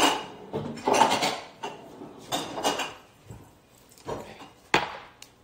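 Kitchen dishes and utensils clattering: a few sudden knocks and clinks of bowls and cutlery being handled.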